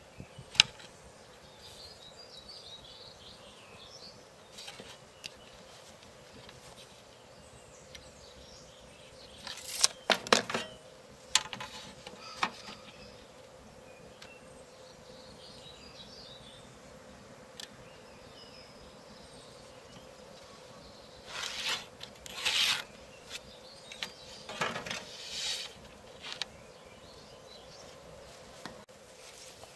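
Intermittent handling sounds at a wooden workbench: sharp clicks and taps of a tape measure and tools on plywood, and short scratchy strokes of a pencil marking out the board, over a faint outdoor background.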